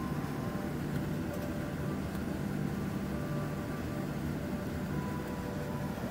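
Jet airliner's engines at idle heard inside the cabin while taxiing: a steady low hum with a few faint whining tones over it.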